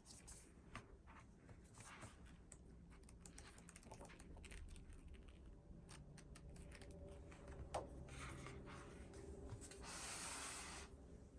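Hands quietly handling album packaging: light taps, clicks and rustling of paper and plastic, with a sharper click a little before the eighth second and a short, louder rustle about ten seconds in.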